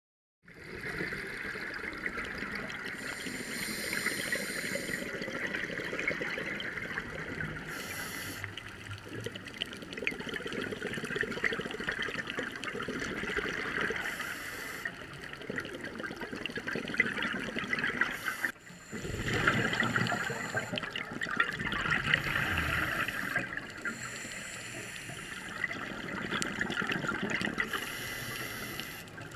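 Underwater sound of scuba diving: a steady watery hiss, with the diver's regulator breathing and exhaled bubbles rushing in every few seconds. It starts about half a second in, after silence.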